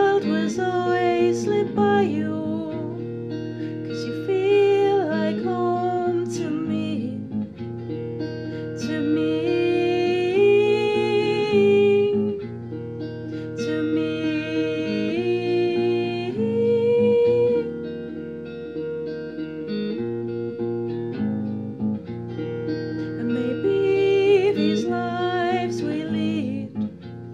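A small polka-dot guitar being played, plucked and strummed, with a woman singing a melody over it.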